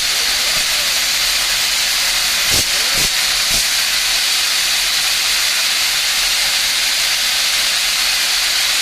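Steam boiler pressure relief valve blowing off steam during a 50 psig test: a loud, steady hiss. Three faint knocks come a little under halfway through.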